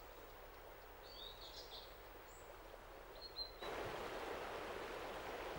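Faint outdoor quiet with a few short bird chirps. About three and a half seconds in, it switches suddenly to the louder, steady rush of the River Afan flowing over rocks and small rapids.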